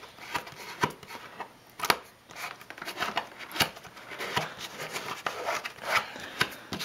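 Worn Plastidip rubber coating being picked and peeled by hand off a plastic dirt-bike fender: irregular sharp little clicks and snaps, about two a second, over the light rub of fingers on the plastic.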